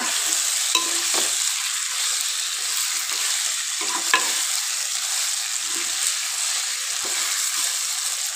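Chicken and potato pieces sizzling as they fry in oil in a metal pot, stirred with a metal spoon. The spoon scrapes and knocks against the pot a few times, most sharply about four seconds in.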